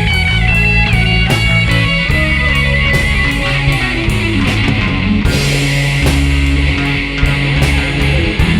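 Live rock band playing an instrumental passage: electric guitar lines over bass and a steady drum beat, with a denser cymbal wash coming in about five seconds in.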